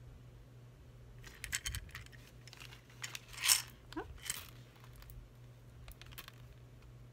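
Small glass beads clicking and rattling as they are poured from a clear plastic box into a small plastic zip-lock bag, with a louder clatter about three and a half seconds in; a few beads spill onto the felt mat.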